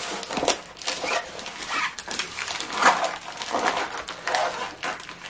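A rolled diamond painting canvas and its plastic cover film being unrolled and pressed flat by hand, crinkling and rustling in irregular bursts.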